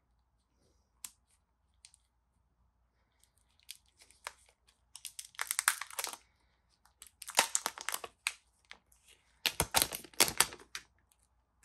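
Clear protective plastic film being peeled off the back of a smartphone, crackling and crinkling in three bouts, after a couple of faint clicks.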